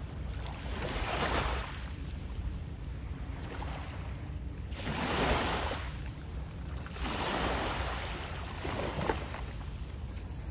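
Small waves washing in at the water's edge, swelling and falling away every couple of seconds, over a steady low rumble of wind on the microphone.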